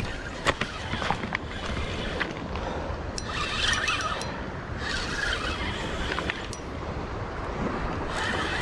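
Spinning reel cranked steadily as a hooked fish is reeled in, over a steady rushing noise, with a few clicks near the start.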